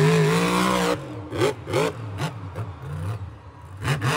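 Monster truck engine revving hard: a high steady note for about the first second, then quick throttle blips with the pitch rising and falling, and a steady high note again near the end.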